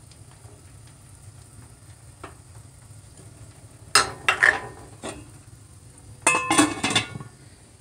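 An aluminium pot lid clatters on metal twice: a sharp clatter about four seconds in, then a longer one with a ringing metallic tone as the lid is set onto the soup pot, over a steady low hum.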